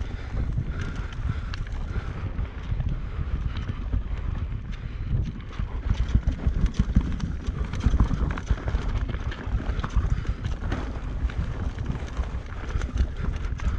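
Mountain bike riding fast down a rough trail: wind on the microphone over a rumble of tyres on dirt, with the chain and frame rattling and knocking over bumps. It gets busier and louder about six to nine seconds in.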